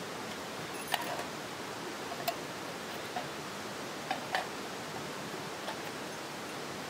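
Light plastic clicks and taps, about six spread over a few seconds, as small plastic cups and lids are handled and fitted together, over a steady background hiss.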